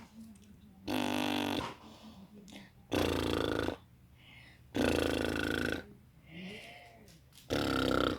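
A hoarse, raspy voice giving four loud calls, each under a second long and about two seconds apart, with a fainter call that rises and falls between the last two. The voice is croaky from a cough.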